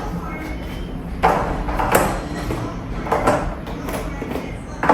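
Groceries being set down and moved around in a mini fridge during restocking: a handful of separate knocks and clunks, roughly one a second.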